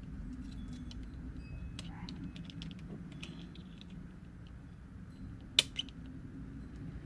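Small clicks and taps as a VW ignition lock barrel and its key are handled, with a sharper metallic click about five and a half seconds in, over a low steady hum.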